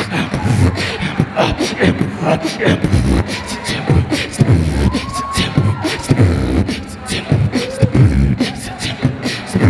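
A human beatboxer performing into a handheld microphone over a PA: a fast, unbroken rhythm of vocal kick-drum thumps, clicks and hisses, with a short pitched sound that slides up and back down about five seconds in.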